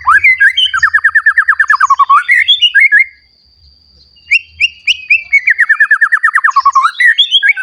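Young white-rumped shama singing two loud phrases about a second apart, each a rapid run of notes that slides downward in pitch, broken up by sharp higher calls.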